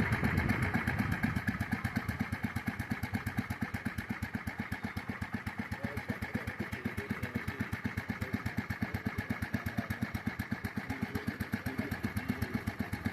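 Kohler two-stroke engine of a 1963 Polaris SnoTraveler snowmobile idling with a fast, even putter, a little louder for the first second or so before settling.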